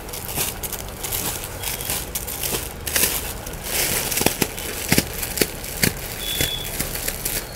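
Clear plastic bedsheet packaging crinkling and rustling as a hand riffles through a stack of packed sheets, with several sharp crackles about three to six seconds in.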